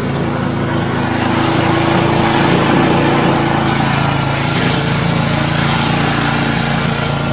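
Snowblower's small gasoline engine running steadily under load with a constant low drone.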